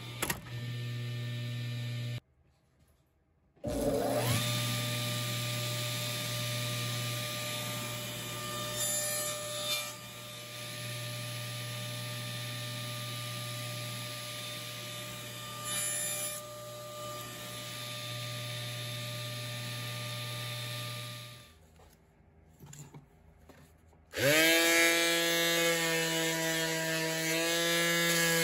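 Table saw starting about four seconds in and running steadily while small pieces of wood are crosscut on a sled, then shutting off. Near the end a Black & Decker Mouse detail sander starts with a quick rising whine and runs steadily, louder than the saw.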